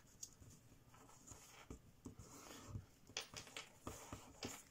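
Faint rustling and crackling of thin kami origami paper as fingertips fold and press a crease flat, with a few soft scrapes and ticks that come thicker in the second half.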